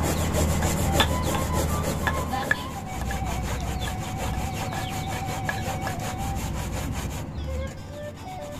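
Stone pestle grinding spice paste in a stone mortar (ulekan and cobek), a rhythmic gritty rubbing and scraping of stone on stone, easing near the end.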